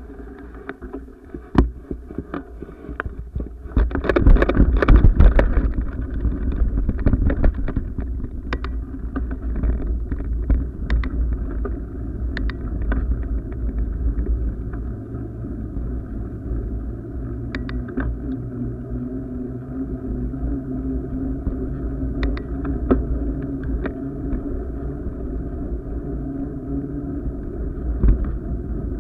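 Wind rushing over the microphone of a fast-moving camera, with a rolling rumble and scattered knocks and rattles from the mount as it travels along a path. It is loudest about four to six seconds in.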